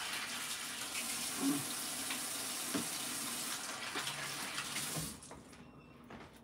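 Kitchen sink faucet running while hands are washed under it, with a few light knocks. The water shuts off about five seconds in.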